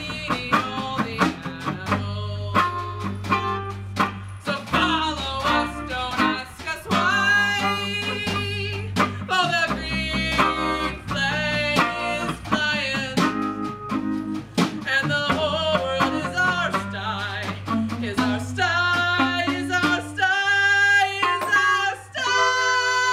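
A solo voice singing a stage-musical number over live instrumental accompaniment, with a steady bass line and percussion. The voice holds one long note near the end.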